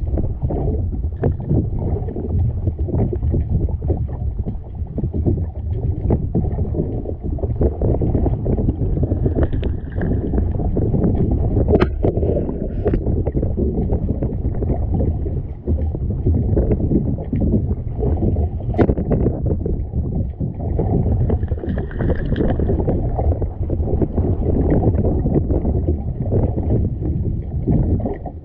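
Sea water sloshing and splashing irregularly around a sea kayak, with wind rumbling on the microphone.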